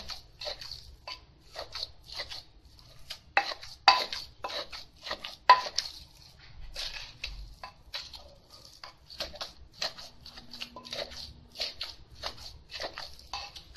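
Pestle pounding a chili and fermented-fish paste in a clay mortar: irregular knocks, about two a second, with the loudest strokes about four and five and a half seconds in. A metal spoon turns the paste between strokes.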